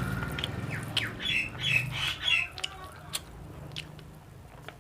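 A bird squawking, a quick run of about four harsh calls a second or so in, over scattered clicks and crunches of someone chewing food.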